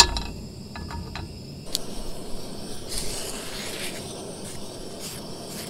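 A cast iron skillet set down on a portable camp stove with a sharp clank, followed by a few light clinks. A stick of butter is then rubbed around the heating pan, giving faint brief sizzles over a low steady hiss.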